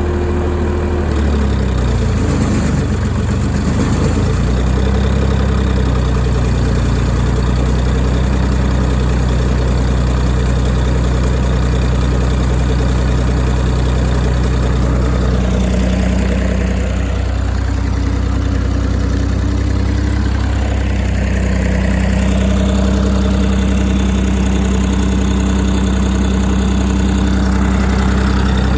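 YD385 diesel engine driving an 11 kW generator, running steadily under a load test. Its pitch wavers for a few seconds near the start, then holds steady. Partway through, a fainter, higher sound falls and then rises again.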